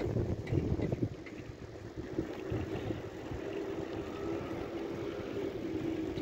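Engine and road noise of a car driving slowly, with wind buffeting the microphone in the first second, then a steadier engine tone.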